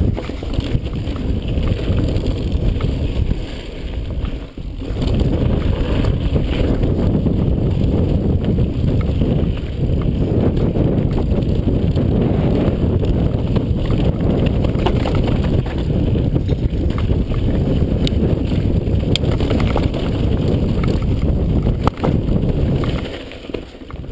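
Mountain bike descending a dirt and gravel singletrack: loud wind rushing over the camera microphone together with tyre rumble and the rattle of the bike, with occasional sharper knocks. The noise dips briefly about four and a half seconds in and eases off near the end.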